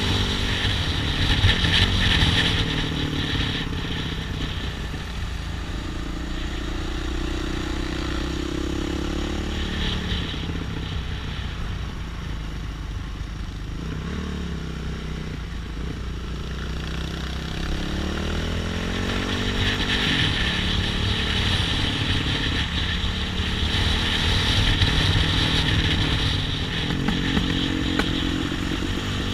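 Off-road trail motorcycle engine running as it is ridden, the revs rising and falling repeatedly. It is quieter through the middle stretch and louder again from about two-thirds of the way in.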